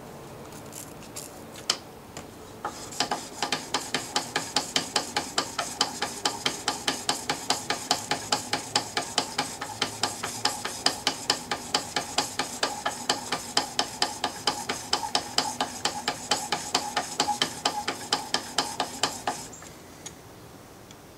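Steel blade clamped in a roller sharpening jig being stroked back and forth on a coarse diamond sharpening stone: a fast, even run of scraping strokes that starts about three seconds in and stops near the end. A few light clicks come first, as the jig's angle is adjusted.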